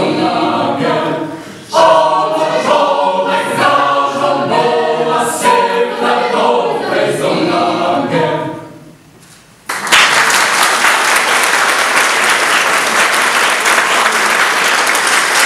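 Mixed choir of men's and women's voices singing a cappella, ending on a chord that dies away about eight or nine seconds in. The audience then bursts into steady applause to the end.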